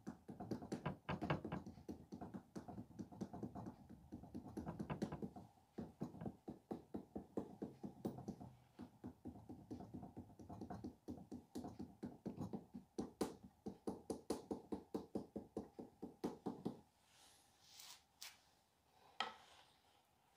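Rapid, rhythmic tapping on the soft clay of a sculpted figure, several strikes a second. The tapping stops about 17 seconds in, and a few scattered knocks follow.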